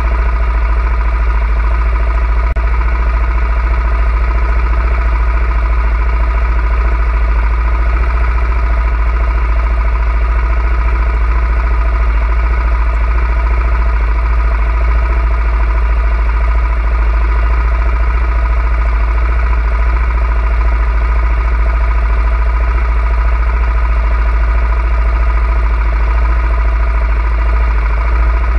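ATV engine running at a steady, unchanging pitch, with a strong constant low rumble underneath.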